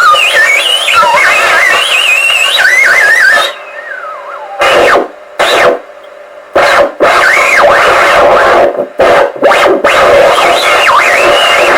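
Electronic soundscape: warbling, wavering whistle tones over a dense hiss of noise, like a theremin or short-wave static. It cuts out and back in abruptly several times through the middle.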